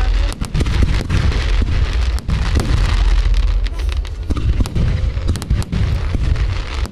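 Aerial fireworks going off nonstop: rising rockets and bursting shells make dense crackling and many sharp bangs over a heavy low rumble.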